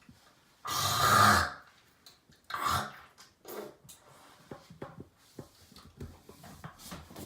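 A man hawking up phlegm from his throat: one harsh, rasping throat-clearing hawk about a second in, followed by two shorter, weaker ones, then faint small clicks.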